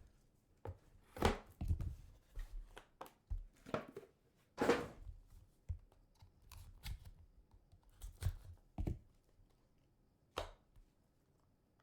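Hands opening and handling a sealed trading-card box and its pack: irregular taps, knocks and rustles of cardboard and wrapper. They die away after about ten and a half seconds.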